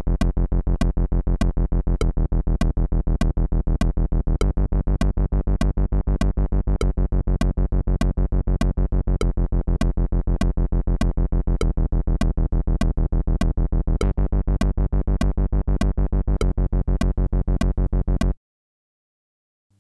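Behringer Poly D analog synthesizer playing a low bass line of short, evenly repeated notes, each with a sharp click at its start, triggered in a steady rhythm by the Behringer TD-3's gate output. The pitch changes about four and a half seconds in and again near fourteen seconds as keys are played, and the pulse cuts off suddenly near the end.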